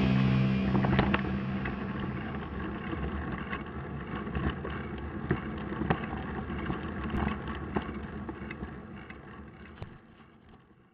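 Rock music cuts out about half a second in. After it comes the rolling noise of mountain bikes on a gravel track, with tyre crunch, scattered knocks and rattles, and wind on the microphone, fading away toward the end.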